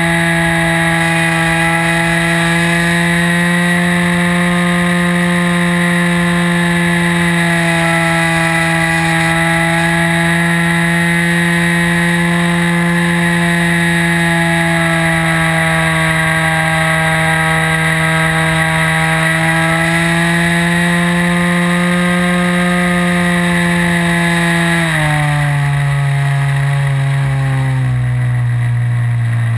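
The OS 55 AX two-stroke glow engine of a model aerobatic plane, heard from on board, runs at a steady high throttle with its pitch gently wavering. About 25 seconds in it is throttled back, and its pitch drops in two steps.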